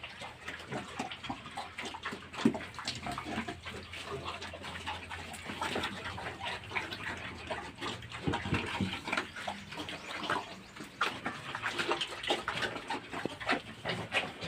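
Piglets making many short, irregular calls.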